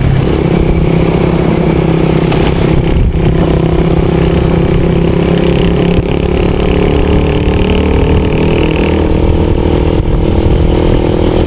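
Vehicle engine running steadily while driving, a constant drone with road noise. A higher hiss joins for a few seconds midway.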